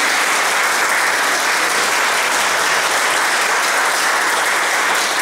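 Steady applause from a roomful of people, the choir and audience clapping together.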